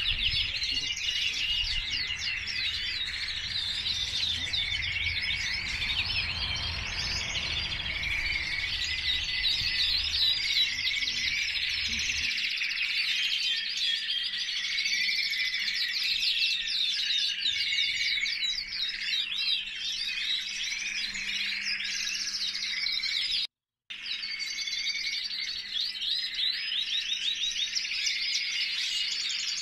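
Several caged canaries singing at once: overlapping fast trills and warbles. A low rumble under them stops suddenly about twelve seconds in, and all sound drops out for a moment a little past two-thirds of the way through.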